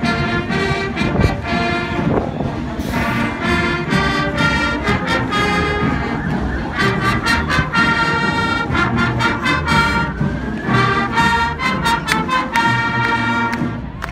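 Marching band playing a tune led by brass instruments, in short rhythmic phrases with sharp percussive accents.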